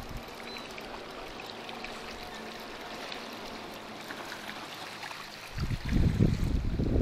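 Water lapping and sloshing at the shoreline while a hooked perch is reeled in on a spinning rod, with the perch splashing at the surface near the end. A loud burst of low rumbling starts about five and a half seconds in.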